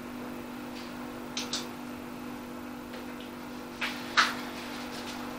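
A steady low hum runs under four brief soft noises: two close together about a second and a half in, and two more around four seconds in, the last the loudest.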